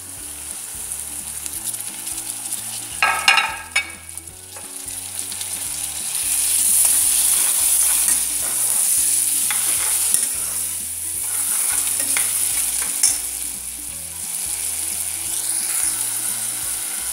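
Chopped tomato, onion and bacon frying in hot fat in a pan, sizzling steadily, with a metal spoon stirring and scraping the pan around three to four seconds in. The sizzling gets louder about six seconds in.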